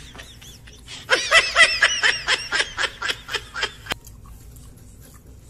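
A person laughing: a quick run of high-pitched laugh pulses that starts about a second in, fades away and stops just before four seconds.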